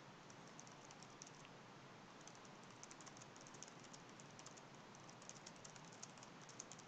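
Faint computer keyboard typing: a quick, uneven run of soft key clicks.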